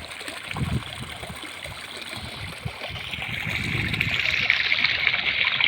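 Steady rushing water, getting louder about three seconds in, with a few low thumps in the first half.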